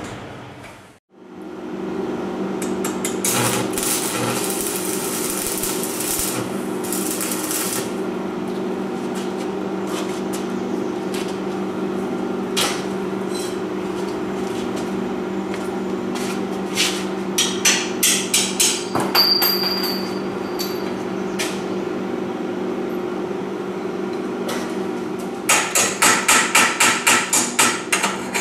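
Hammer tapping on metal tubing of a paramotor frame: runs of sharp strikes, a few in the middle and a quick run of about four a second near the end, over a steady low hum.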